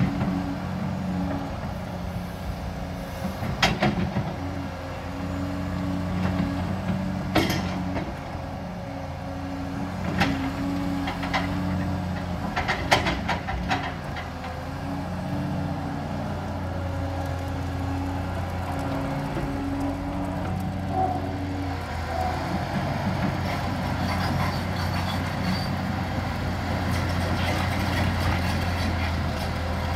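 Liebherr 946 crawler excavator working in brick and concrete rubble: its diesel engine and hydraulics run with a steady low hum and a pulsing hum above it. Sharp clanks and crashes of rubble against the bucket come about half a dozen times in the first half. The second half is a steadier engine drone that grows a little louder near the end.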